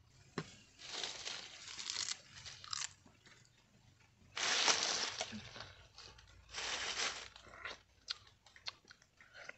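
Dry leaves crunching and rustling in three long bursts, the loudest about four seconds in, followed by a few small sharp snaps and clicks.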